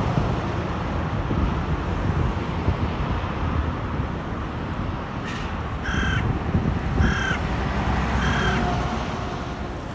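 A crow cawing: three short caws about a second apart in the second half, after a fainter first one, over a steady low rumble.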